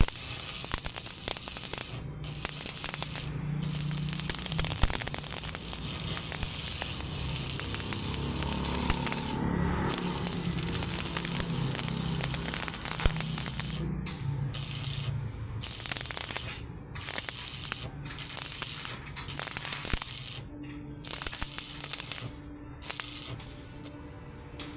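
Electric arc welding crackling and sizzling, broken by several short pauses where the arc stops.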